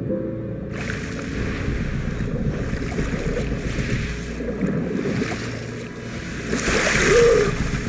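Film sound effect of churning, rushing water as a swimmer comes up to the surface, swelling into a louder rush about seven seconds in.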